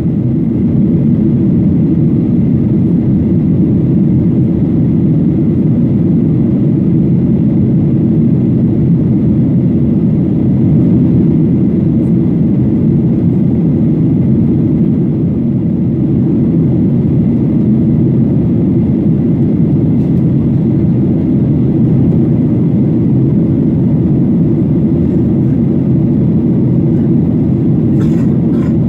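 Cabin noise of a Boeing 737-800 climbing after take-off, heard from a window seat over the wing: a steady, even low rumble of its CFM56 turbofans and the rushing air.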